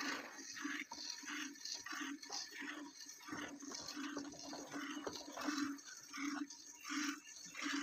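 Water buffalo being milked by hand: jets of milk squirting into a metal pot in a steady rhythm, about two to three squirts a second.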